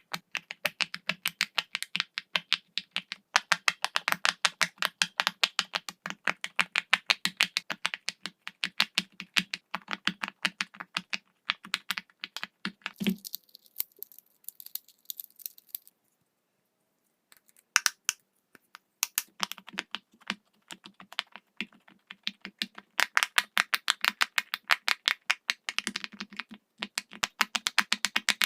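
Silicone bubbles of a large pop-it fidget toy being pressed through one after another, making a rapid run of soft pops, several a second. There is a short pause about two-thirds of the way through before the popping resumes.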